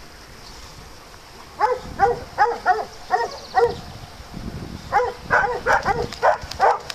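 Dog barking repeatedly, starting about one and a half seconds in: a run of about seven sharp barks over two seconds, a short pause, then a quicker run of barks near the end.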